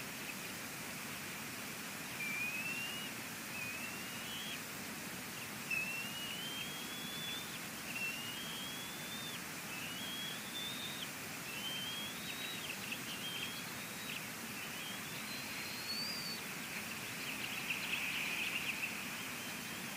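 Bald eagle giving a series of thin, rising whistled calls, about eight of them, each a second or so long, then a louder burst of chittering near the end. Under it runs a steady hiss of rain.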